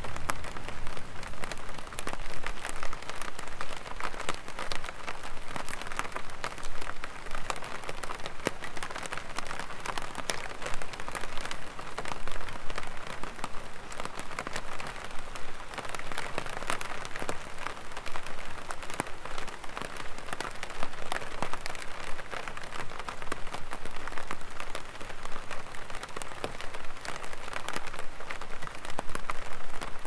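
Light rain falling on an umbrella overhead: a dense, steady spatter of small drop taps.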